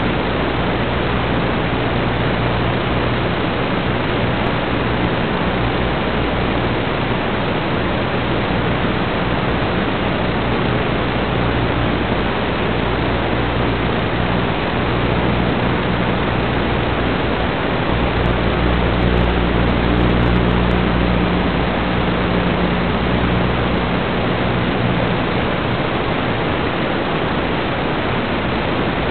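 Steady hiss of static from an analog FPV video link's receiver audio, with a faint low hum underneath.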